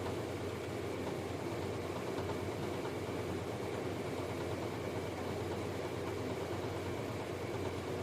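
A steady mechanical hum with even hiss and a faint constant high whine, like a motor running without change.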